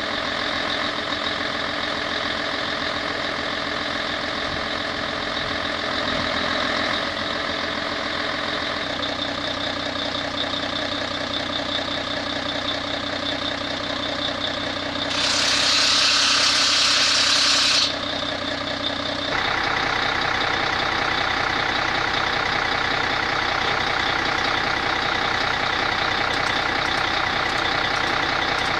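Heavy machinery running with a steady hum. About fifteen seconds in, a loud hiss of released air lasts about three seconds and cuts off sharply. Just after, the running note changes and gets a little louder.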